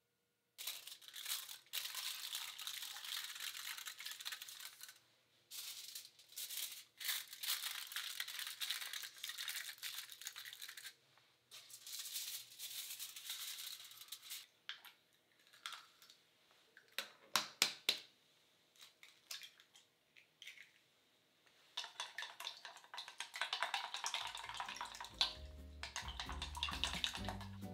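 Aluminium foil being torn and crinkled over small ceramic cups, in long rustling stretches with a few sharp clicks about two-thirds of the way through. Near the end, eggs are beaten in a stainless steel bowl, and light music comes in.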